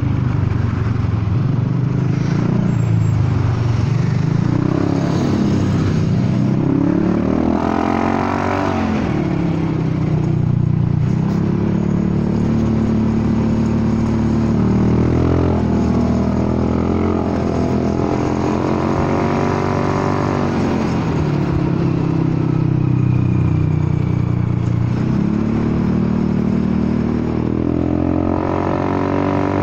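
Honda Forza 300 scooter's single-cylinder engine and exhaust under way, its pitch climbing as the throttle opens and dropping back as it eases off, several times over.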